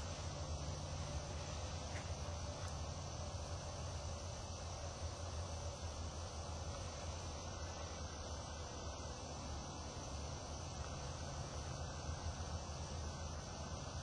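Steady insect chirring, crickets, over a low steady hum.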